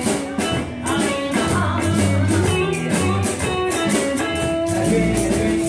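Live blues band playing: guitars over a bass line, with drums keeping a steady beat on the cymbals.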